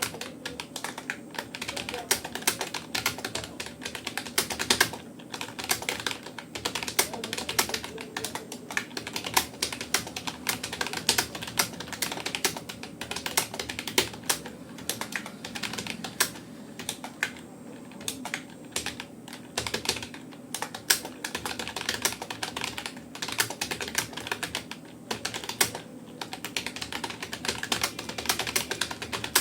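Fast touch typing on a Rapoo computer keyboard: a rapid, continuous stream of key clicks, several a second.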